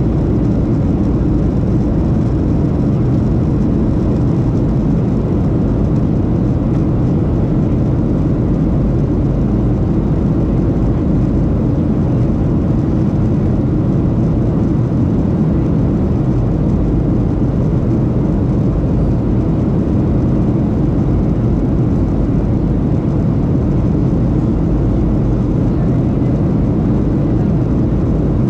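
Steady cabin noise of a Boeing 737-700 in flight: the deep, even rush of its CFM56-7B engines and the airflow around the fuselage, heard from inside the cabin over the wing.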